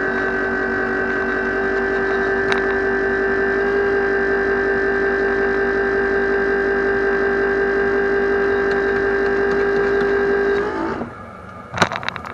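A loud, steady buzzing tone that holds one pitch and cuts off abruptly near the end, followed by a few sharp clicks.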